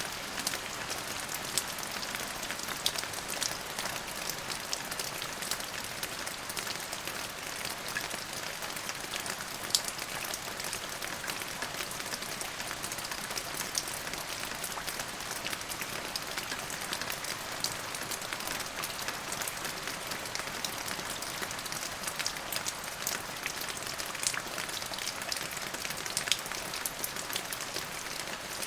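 Steady rain falling on a surface: a constant hiss with many separate drops pattering throughout.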